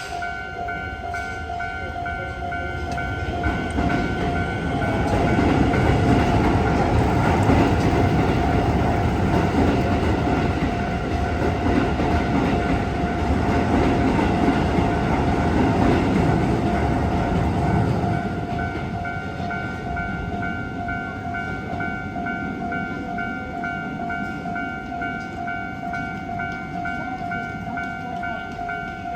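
Japanese railway level crossing warning bell ringing steadily in a pulsing electronic tone while a train passes over the crossing. The train's rumble and wheel noise swell from about three seconds in and fall away at around eighteen seconds, leaving the bell still ringing.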